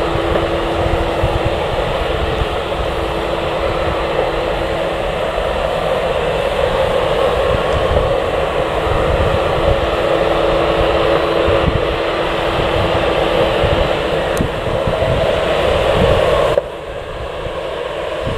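Jet airliner engines running with a steady whine over a broad rush of engine noise, and wind rumbling on the microphone. The sound drops abruptly about sixteen and a half seconds in to a quieter engine noise.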